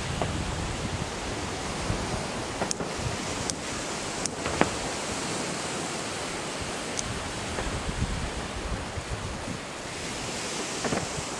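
Fireworks display heard under steady wind noise on the microphone: a few faint, sharp pops and crackles stand out here and there over the rushing haze.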